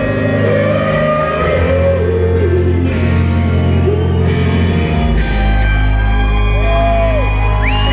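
Live rock band playing amplified, with sustained distorted electric guitar notes that bend and slide over a heavy steady bass, heard from the audience in a large hall.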